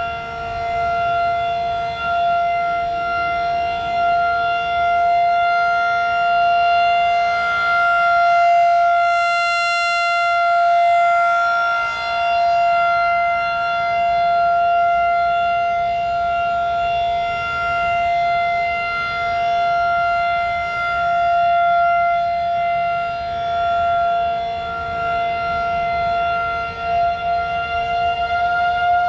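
Federal Signal 2001-SRN rotating electromechanical tornado siren sounding its steady Alert signal: one held tone that swells and fades gently as the rotating horn sweeps around, sounding brightest about ten seconds in.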